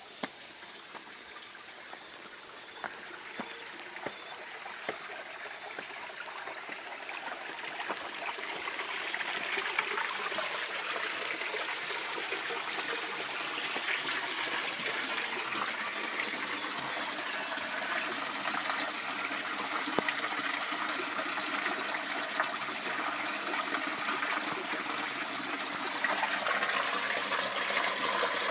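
Flowing creek water, a steady rushing that grows louder over the first ten seconds and steps up again near the end.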